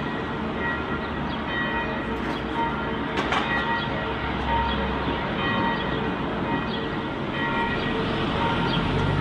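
Level-crossing warning bell ringing over and over while the barriers are down, with a sharp clank about three seconds in.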